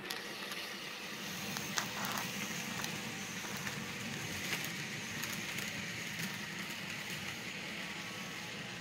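Model freight train rolling along the layout's track: a steady rattle of metal wheels on rail, broken by a few sharp clicks, the loudest about two seconds in.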